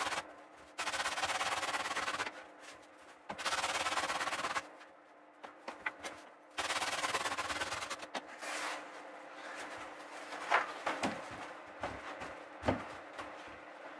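Large slabs of upholstery foam being handled and pushed into a settee berth: several stretches of rubbing noise a second or so long, each stopping abruptly, then a few light knocks as the foam is pressed into place against the wood.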